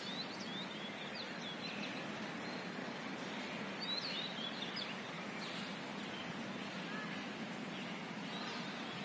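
Small birds chirping in short high calls, a few at the start and a cluster about four seconds in, over a steady rushing outdoor background noise.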